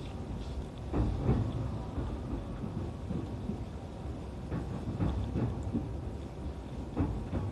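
Low rumble of an electric train at a station, broken by a few dull thuds.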